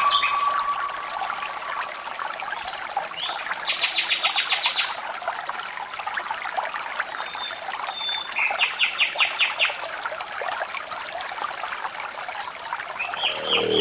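Steady hissing street noise, with two short rapid trills of high chirps, one about three seconds in and one about eight seconds in.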